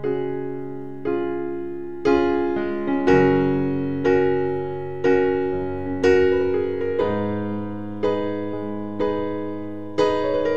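Background keyboard music: slow chords struck about once a second, each fading away before the next.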